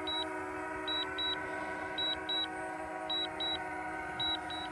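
DJI Mavic Mini's propellers humming steadily as the drone descends to land on return-to-home, with the remote controller's return-to-home alert beeping in quick pairs about once a second.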